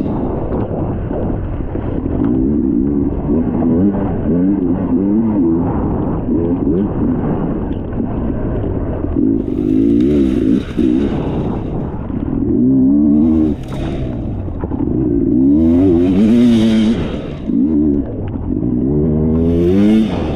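Dirt bike engine revving up and down over and over as it is ridden along a muddy trail, its pitch climbing and dropping every second or two. From about halfway through, several short bursts of hiss sound over the engine.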